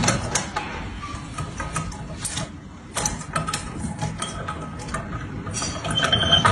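Small plastic toy bicycle clicking and rattling as a parakeet pedals and rolls it across a wooden tabletop, with many irregular sharp clicks.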